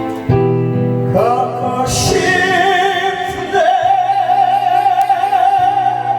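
Live performance of a Korean ballad with backing music. About a second in, a long melody note with vibrato begins and is held almost to the end.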